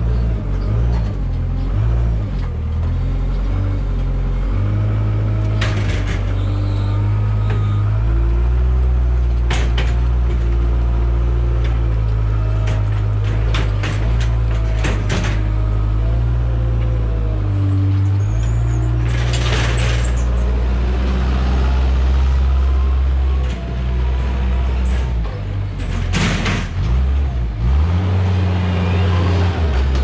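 Weidemann compact wheel loader's diesel engine running under load, its pitch rising and falling as the boom works. There are several sharp knocks and clanks.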